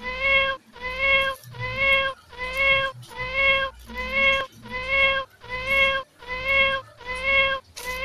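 The same short cat meow repeated about ten times at an exactly even pace, a little more than once a second, each call identical and held at one steady pitch: a looped meow sound effect rather than a cat calling on its own.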